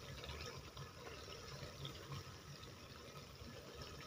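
Thick onion-pepper masala gravy simmering faintly in a wok, a soft bubbling over a steady low hum.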